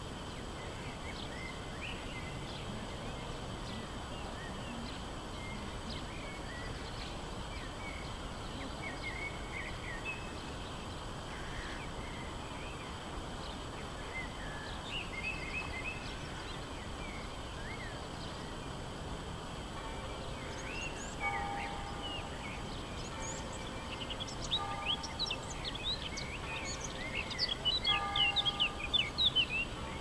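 Steady outdoor town background noise with birds chirping now and then. In the last third a faint run of repeated steady tones sets in, and the bird calls grow into a quick flurry of high chirps near the end, the loudest sound here.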